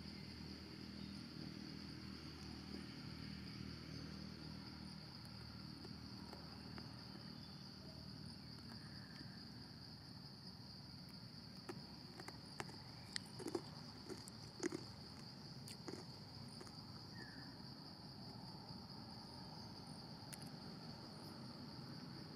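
Insects buzzing in a steady high-pitched drone in forest, with a short cluster of sharp clicks a little past the middle.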